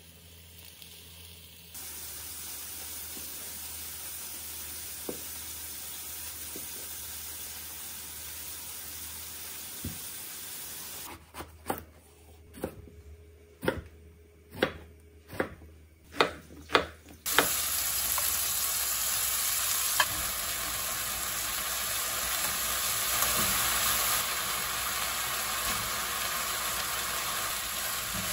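A steady frying hiss, then a chef's knife slicing an eggplant on a wooden cutting board, about nine sharp knocks. Then eggplant and ground beef sizzle loudly in a frying pan as they are stirred with a wooden spatula.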